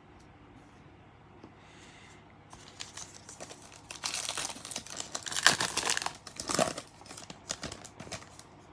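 Wrapper of a 2019 Donruss Elite football card pack being torn open and crinkled by hand. The crackling starts a couple of seconds in and is loudest through the middle.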